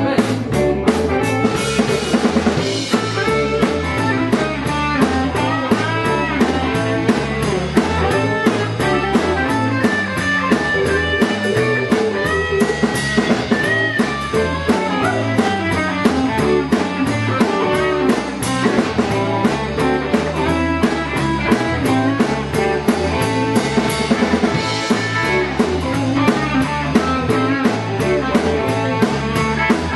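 Live blues band playing an instrumental stretch: electric guitars over a steady drum-kit beat.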